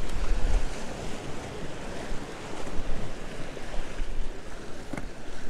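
Surf washing against jetty rocks, a steady wash of water noise, with wind rumbling on the microphone.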